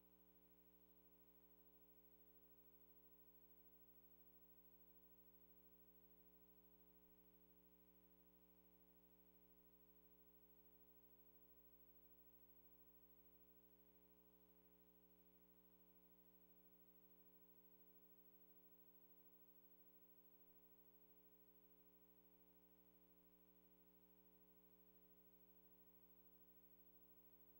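Near silence: only a faint, steady electrical hum under the silent film footage.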